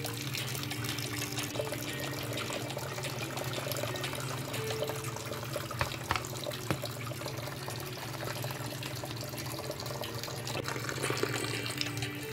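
Water sloshing and splashing in a plastic basin as peeled cassava roots are rubbed and rinsed by hand, with a few sharper knocks about halfway through.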